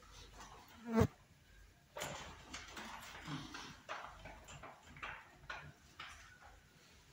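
Marker pen writing on a whiteboard: a run of short scratching and squeaking strokes, with one louder, sharp stroke about a second in.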